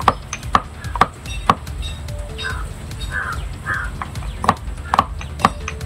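Areca nut being pounded for betel in a small mortar with a pestle: sharp, even strikes about two a second. The strikes pause for about three seconds in the middle, then resume.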